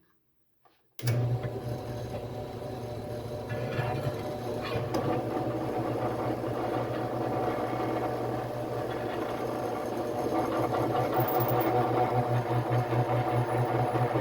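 An electric drill starts up about a second in and runs steadily, boring a hole through steel plate. Its motor hum slowly gets louder toward the end.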